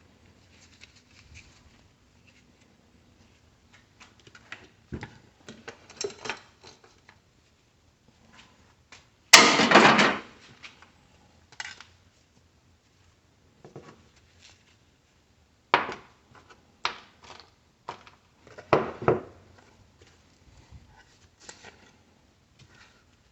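Hand tools and metal and plastic parts clicking and clattering as an electronic power unit is taken apart for scrap. The loudest clatter, about 9 seconds in, lasts about a second, and a few sharper knocks follow later.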